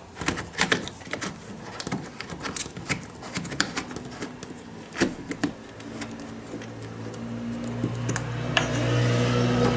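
Small clicks and knocks of an add-on window lock being handled and fitted onto the rail of a sliding window. In the second half a steady low hum grows louder.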